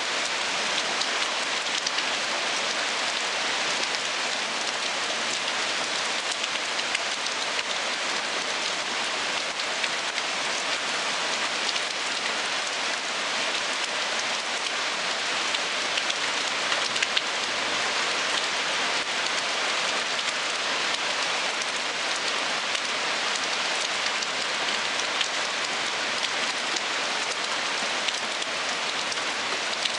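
Heavy rain pouring steadily onto a lawn, a paved driveway and parked cars: an even hiss full of fine pattering drop ticks.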